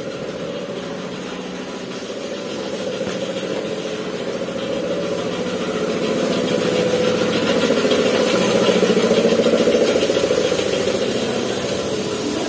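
A motor running steadily with a fast, even pulse, growing louder from about the middle and easing a little near the end.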